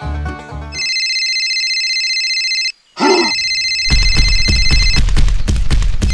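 Telephone ringing, a steady high trill that starts about a second in and is cut briefly near three seconds by a short gliding sound. From about four seconds, music with a heavy beat plays under the ringing.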